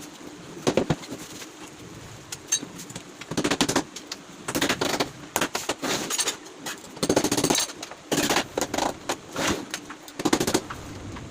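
Power tool running in short bursts of rapid rattling, about eight bursts, each half a second to a second long, with pauses between.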